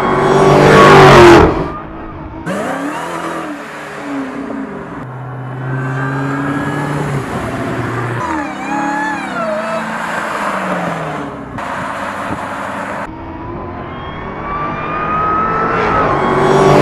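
Dodge Charger SRT Hellcat's supercharged 6.2-liter HEMI V8 accelerating hard with rising pitch and passing loudly about a second in. It is followed by short clips of revving up and down, a steady idle and more revving, then another rising full-throttle pass, the loudest part, near the end.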